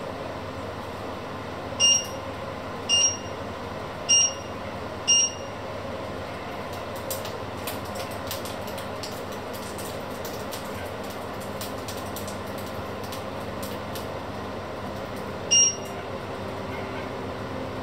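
Steady hum with short, high electronic beeps: four in the first six seconds and one more near the end. Faint clicks come in between.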